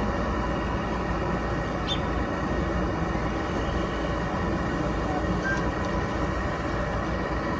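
Gas furnace running at a steady level: the inducer motor and burner firing, a constant mechanical hum with several faint steady tones over it.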